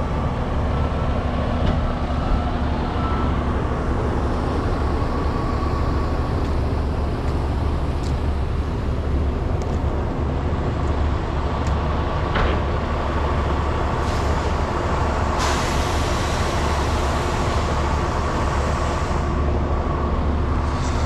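Parked semi trucks idling: a steady low diesel rumble with a faint hum, and a hiss of air partway through.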